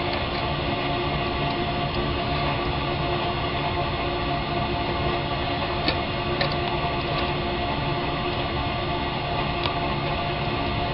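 Steady, even drone with many constant tones, broken only by a few faint clicks: one about six seconds in, another shortly after, and one near the end.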